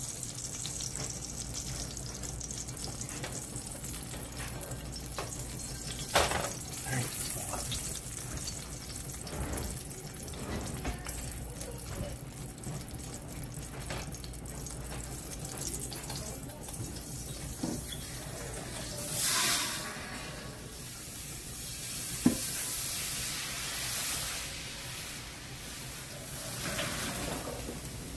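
Hot oil hissing in a cast-iron skillet, with a few sharp knocks as the pan is handled and lifted off the electric burner, and a brief louder burst of hiss about two-thirds of the way through.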